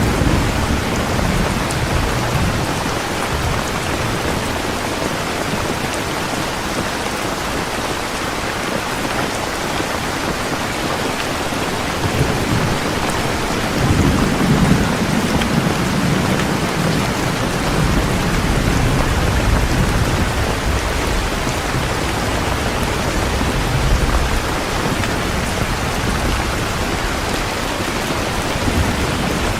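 Steady rain, with low rolling rumbles of thunder swelling near the start, through the middle stretch, and again a little later.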